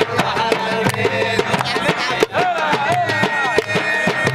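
Music with a quick, steady beat and bending melodic lines; a high note comes in about three seconds in and is held.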